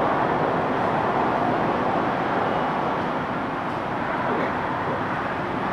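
Steady rushing engine noise.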